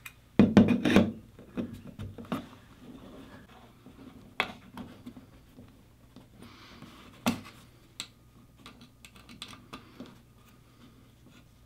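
Small metal fitting noises as a chrome toilet paper holder is handled onto its wall bracket: a quick run of clicks and knocks about half a second in, then scattered single light clicks as an Allen key works the set screw in its base.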